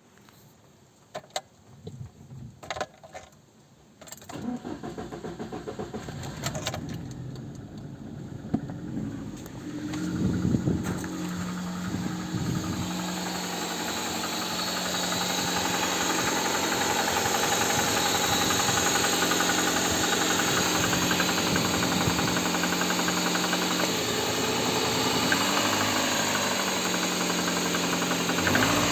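A few clicks, then the Lada 2112's engine is started about four seconds in and settles into a steady idle with a knock, which the owner cannot place between the pistons and the hydraulic valve lifters.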